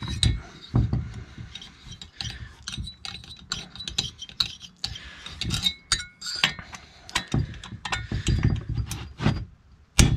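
Irregular metal clinks, clicks and knocks of a 3mm T-handle hex key working the tight cylinder screws of a small two-stroke chainsaw, with dull handling thumps as the saw is held and turned.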